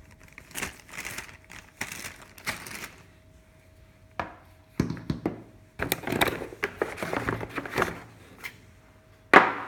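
Packaging of an airsoft pistol box being handled: irregular rustling and scraping in bursts with a few clicks, and a sharp knock near the end.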